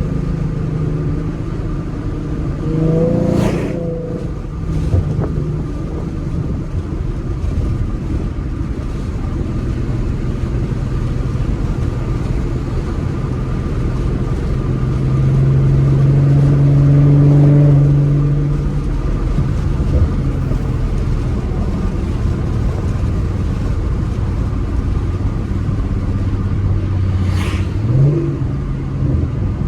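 2014 Ford Mustang's 3.7-litre V6, breathing through BBK shorty headers and a Roush axle-back exhaust, running steadily on the road. It grows louder for a few seconds around the middle and rises briefly in pitch near the end, with two short sharp noises, one a few seconds in and one near the end.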